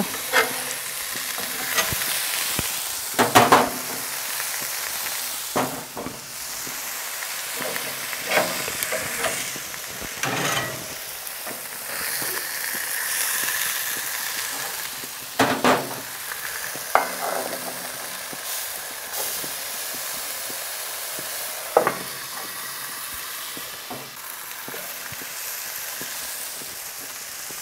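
Beef burger patties sizzling steadily on a hot griddle plate on a gas grill, with several sharp scrapes and clinks of a metal spatula and cover against the plate.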